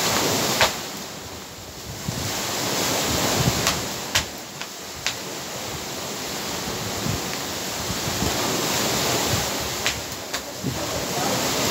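Surf breaking and washing on a rocky shore, with wind buffeting the microphone. A few sharp, scattered slaps from a skipping rope hitting the concrete come about half a second in, around four to five seconds in, and again near ten seconds.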